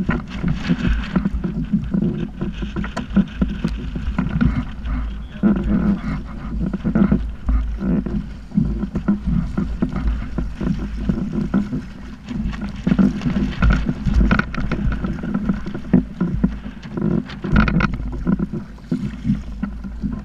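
Gusty wind rumbling on the microphone, with water slapping and splashing irregularly against a kayak's hull as it moves through choppy water.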